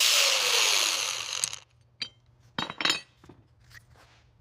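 Power sander's sanding disc running against a rusty steel van panel, winding down about a second and a half in, followed by a few light metallic clinks.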